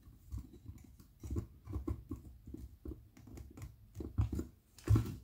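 Hands handling a plastic action figure and working its jointed arms: a run of soft, irregular knocks and clicks, the loudest near the end.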